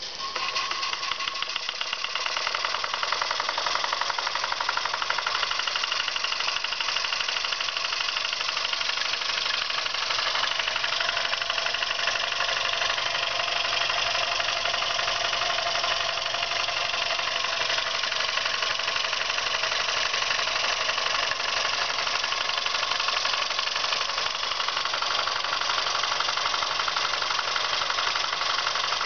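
Jensen 20-G steam engine started by spinning its flywheel by hand. It picks up within a second or two and then runs fast and steady, with a rapid even beat, on low-pressure steam at about 11 psi while driving its alternator.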